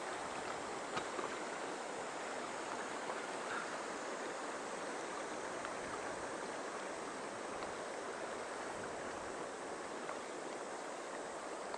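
Steady rush of a fast, shallow river running over rocks and through a riffle.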